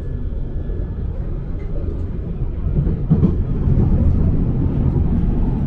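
Bakerloo line 1972 Stock tube train running between stations: a steady low rumble of wheels on track that grows louder about three seconds in, with a few knocks from the rails around then.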